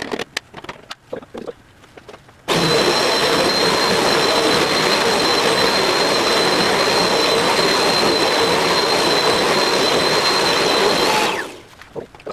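Vacuum cleaner switched on about two and a half seconds in, running steadily with a high whine over its motor and airflow noise, then switched off near the end, the motor winding down. A few light clicks and knocks come before it starts.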